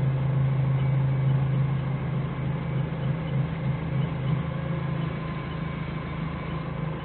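Forklift's diesel engine running steadily with a constant low drone, heard from the driver's seat; it eases slightly about three seconds in.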